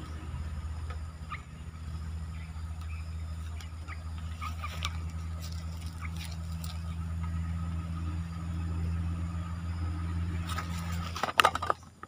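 A steady low motor hum, like an engine running, with a few faint short chirps or rustles over it. The hum cuts off near the end among a few loud knocks.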